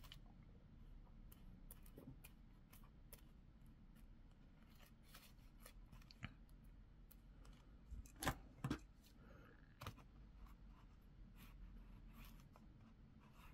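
Mostly near silence, with faint clicks of tiny metal chain and jewelry wire cutters being handled. A few sharper clicks come a little past the middle.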